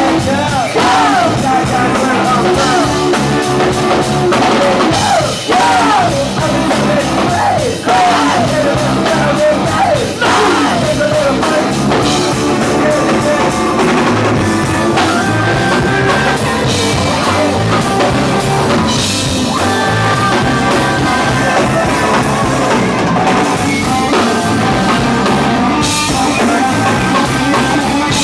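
Live rock band playing loud, with a drum kit driving it.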